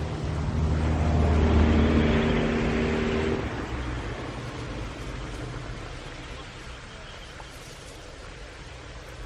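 A motor vehicle passing nearby: its engine sound swells to a peak about two seconds in, then fades away over the next several seconds.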